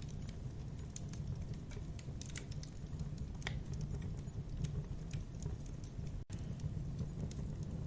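Campfire burning: a steady low noise of the flames with frequent small, sharp crackles and pops of burning wood. The sound cuts out for an instant a little over six seconds in.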